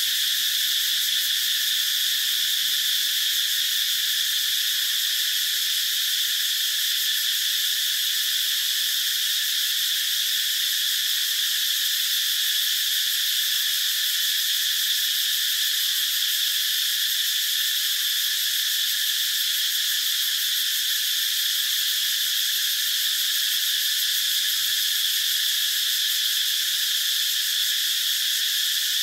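Cicadas singing: a loud, steady, high buzzing drone that never breaks or changes. It is the males' calling song, made to attract mates.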